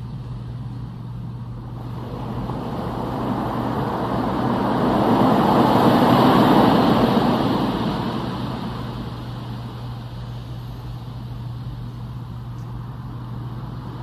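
RENPHO white noise sound machine playing one of its built-in nature sounds through its small speaker: an even rushing noise that swells slowly to a peak about halfway through and then fades back, over a steady low hum.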